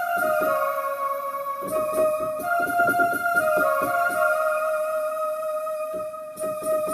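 Kurzweil K2000 synthesizer playing a melody of held keyboard notes that step down in pitch, over a rhythmic accompaniment that drops out briefly twice.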